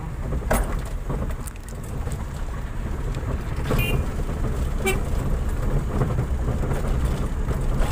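A vehicle's engine and road rumble, heard from inside the cabin as it drives over a rough, rocky dirt road. A few sharp knocks and rattles come as it jolts over the bumps.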